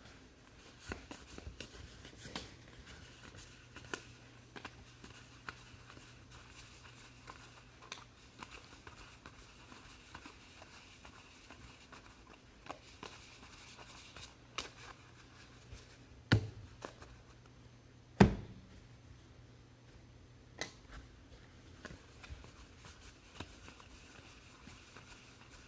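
Trading cards being handled on a table: soft scattered clicks and slides, with two sharper knocks about two seconds apart past the middle, over a faint steady hum.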